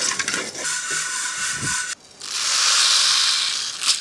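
Dry-roasting mustard seeds and spice powder scraped and stirred with a wooden spatula in a clay pan, with a light crackle. About halfway through this stops suddenly, and a smooth hiss swells and fades for over a second as the roasted seeds are poured out of the pan into a stone bowl.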